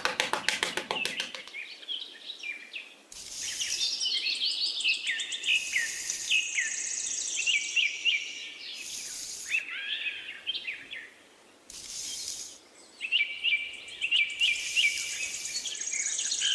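Small birds chirping and twittering, many quick high calls overlapping, with short bursts of hiss every few seconds.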